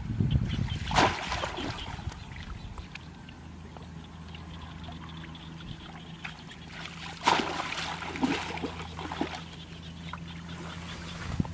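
Pond water splashing and trickling as hands work inside a bamboo plunge basket standing in shallow water, with sharper splashes about a second in and again past seven seconds. A low steady hum runs underneath from about three seconds in.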